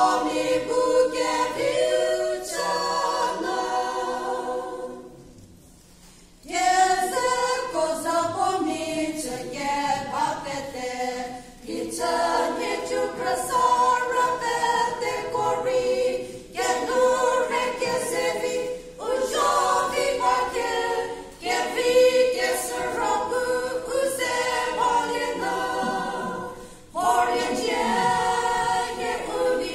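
A women's choir singing a gospel song a cappella into a microphone. Phrases are separated by short breaths, with a longer pause about five seconds in.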